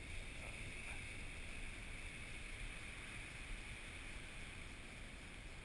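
Ocean surf breaking and washing up the beach, heard as a steady, even rush of waves.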